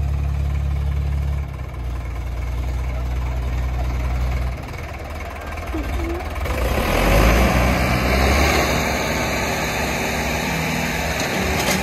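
Diesel tractor engines of a Sonalika DI 750 III and a John Deere 5050 running hard while the two tractors pull against each other on a tow rope in a tug of war. Their engine note shifts a few times and grows louder and rougher from about halfway through.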